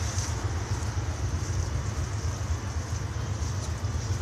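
Steady low rumble of background noise with a faint hiss over it, unchanging and without distinct events.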